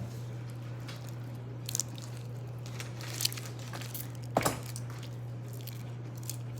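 A soapy, wet squishy toy being squeezed and handled: a few faint squishing crackles and one sharper click about four seconds in, over a steady low hum.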